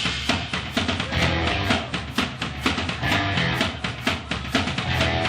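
Live punk-influenced rock band playing, with drum kit, bass drum and guitar.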